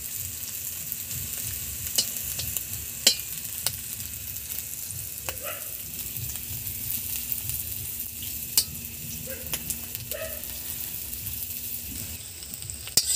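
Sliced snake gourd rings frying in hot oil in a wok with a steady sizzle. A metal spatula stirs and turns them, scraping and clicking against the pan now and then.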